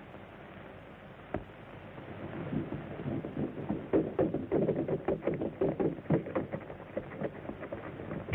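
A single sharp knock, then from about two seconds in a rapid, irregular run of thumps and knocks on an old soundtrack with a dull, narrow sound.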